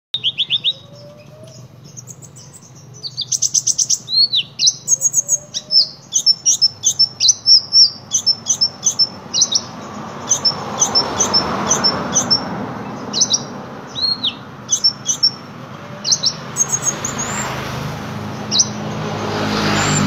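Caged kolibri ngobra sunbird singing busily: quick runs of high, thin chirps and short trills mixed with sharp down-slurred notes, coming in bursts. A passing road vehicle's rumble swells about halfway through and again near the end.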